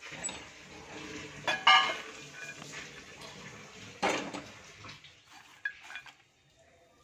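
Popped popcorn being tipped out of a stainless steel pot into a bowl: a dry rustle with metal clanks of the pot. The loudest is a ringing clank about a second and a half in, and a sharp knock comes about four seconds in. The rustle dies away with a few light clicks.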